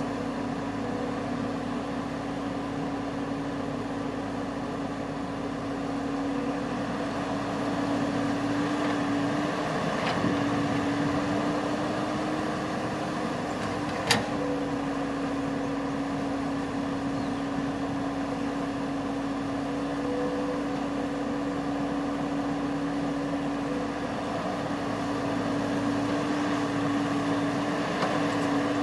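Engine of a Kubota rice-harvesting machine running steadily at a constant drone, with one sharp click about 14 seconds in.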